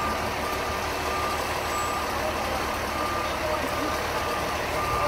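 A fire truck's reversing alarm beeping over and over above the steady rumble of its running engine, the sign that the truck is in reverse as it rolls backward.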